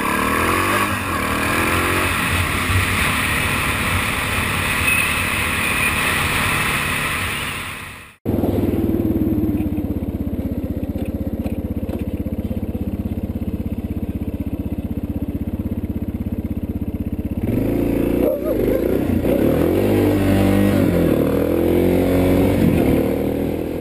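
Motorcycle engine running while riding, with wind noise over the microphone in the first part. The sound cuts off sharply about eight seconds in and picks up again as a steadier engine note; in the last few seconds the engine note rises and falls several times.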